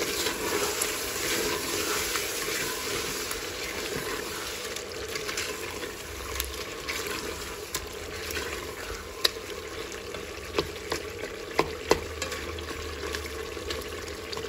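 Chicken frying in oil in a steel pot with a steady sizzle as spices are stirred in with a spatula. The spatula knocks sharply against the pot several times, mostly in the second half.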